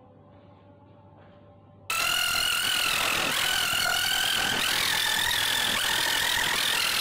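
Faint steady tones, then about two seconds in a loud, dense crackling whir with wavering high tones cuts in abruptly and holds steady: an added sound effect.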